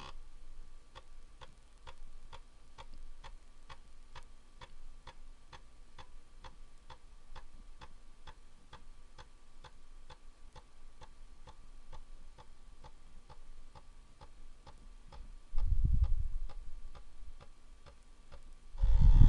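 Commodore 1541-II floppy drive formatting a 40-track disk: the read/write head steps from track to track with evenly spaced clicks, about two a second, over the faint steady hum of the spinning drive. A loud low thump comes about three-quarters of the way through and another at the end.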